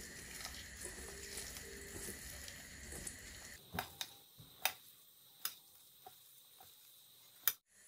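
A hand squeezing and mixing flaked fish with chopped greens in a stainless steel bowl: soft, faint squishing. From about halfway come several sharp ticks against the steel bowl.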